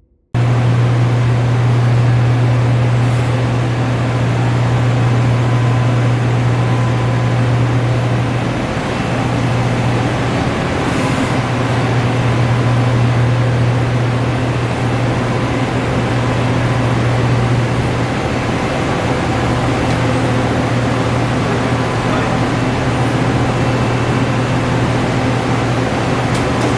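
Hardinge Bridgeport V480 APC vertical machining center running under power: a steady low hum over a broad, even machine noise, easing slightly about nine to eleven seconds in.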